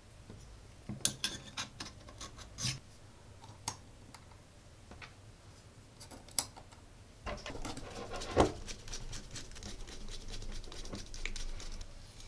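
Small aluminium robot-chassis parts and steel screws handled by hand: scattered light clicks and taps of metal, then a few seconds of scraping and rubbing with one sharp click about eight seconds in.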